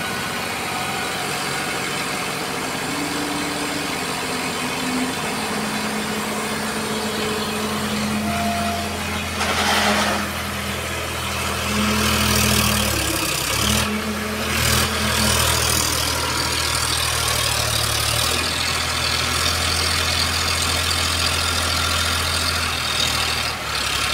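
Eicher 551 tractor's diesel engine running under heavy load while pulling a soil-laden trolley. It works harder from about a third of the way in, with several louder surges in the middle.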